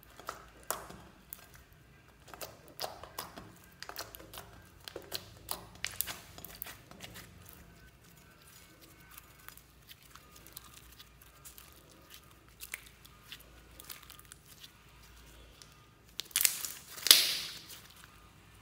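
Slime being squeezed and stretched by hand: a run of short sticky crackles and pops, quieter in the middle, with the loudest squelching crackle near the end.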